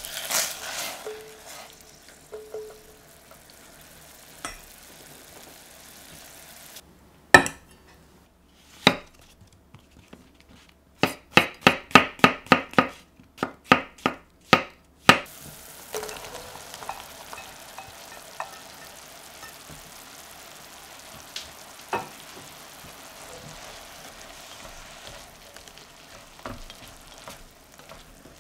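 Chopped shallot and mustard seeds sizzling in a saucepan as they are stirred. Then a chef's knife cuts chestnut mushrooms on a wooden chopping board: a few single sharp cuts, then a quick run of about a dozen. After that the sliced mushrooms fry in the pan with a soft sizzle while a spatula stirs them.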